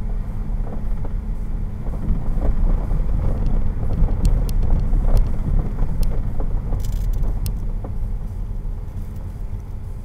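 Car driving slowly, heard from inside the cabin: a low, steady rumble of engine and tyres, with a few sharp ticks around the middle, easing off near the end as the car slows.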